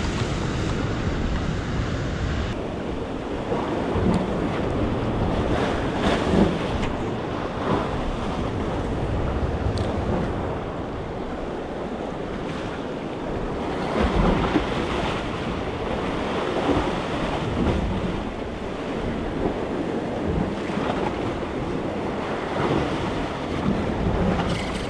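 Sea surf washing and breaking over coastal rocks, rising and falling in slow swells, with wind buffeting the microphone.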